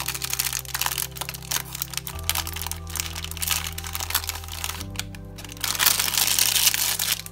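Thin plastic wrapper crinkling and crackling as a packaged cleaning cloth is handled, getting louder near the end. Background music with slow sustained chords plays under it.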